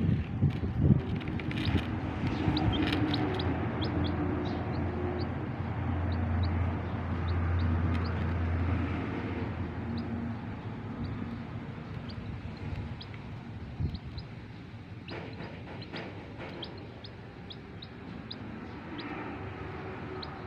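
Several young chicks peeping, short high cheeps in irregular runs throughout, over a low steady hum.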